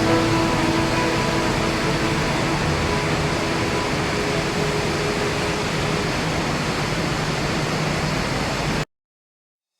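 Steady machinery hum and hiss on a hose-factory floor, cutting off abruptly near the end.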